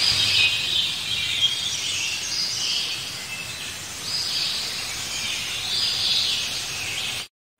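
Birds singing outdoors: a chorus of high, trilled songs that swell and fade every second or two. The sound cuts off abruptly near the end.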